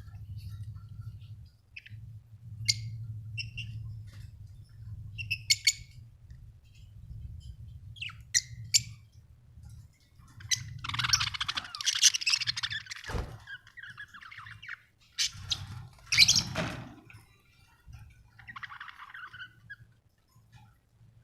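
Budgerigars chirping and chattering: scattered short chirps, then bursts of dense warbling chatter about ten seconds in and again around fifteen to seventeen seconds, over a low steady hum.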